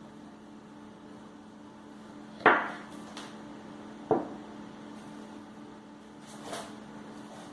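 Two sharp knocks of kitchenware, about a second and a half apart, with a fainter knock near the end, over a steady low hum.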